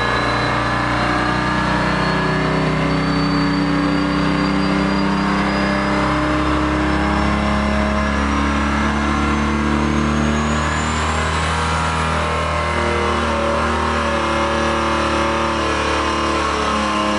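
Turbocharged engine running hard under load on an engine dynamometer, with a high turbo whistle climbing slowly in pitch through the first twelve seconds or so.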